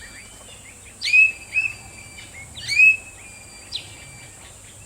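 Racket-tailed drongo calling: two loud calls about a second and a half apart, each a sharp falling note that runs into a held whistle, with softer whistled notes between and after, over faint field-recording hiss.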